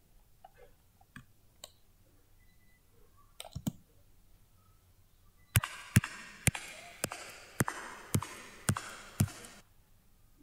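A sound-effect recording played back: a few faint clicks, then a run of eight sharp clicks about two a second over a faint hiss, which cuts off suddenly.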